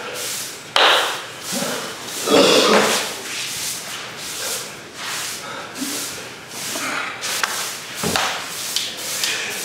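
Straw brooms sweeping across the sand-covered earthen floor of a sumo practice ring in repeated scratchy strokes, with two louder sounds about one and two and a half seconds in.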